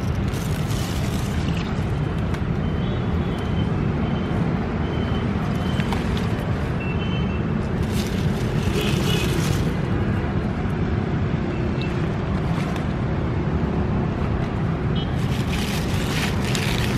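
Wind buffeting the microphone, a steady low rumble, with brief rustles of radish leaves being handled about eight seconds in and again near the end.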